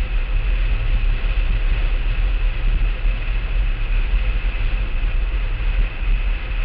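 Blokart land yacht sailing fast across a hard dry lakebed: a steady rush of wind buffeting the on-board camera's microphone as a fluttering low rumble, over the even rolling noise of the kart's wheels on the playa.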